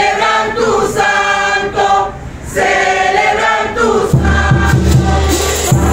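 A group of voices singing a devotional chant together in phrases, with a short pause for breath about two seconds in. About four seconds in, a large drum comes in with a steady beat under the singing.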